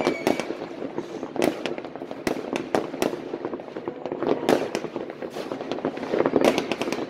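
New Year's fireworks and firecrackers going off all over town: a constant rattle of bangs at many distances over a background crackle, with denser clusters of reports about halfway through and again near the end.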